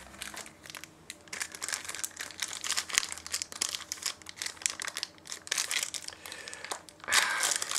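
Plastic packaging crinkling and rustling as a small accessory is unwrapped by hand, starting about a second in and getting louder near the end.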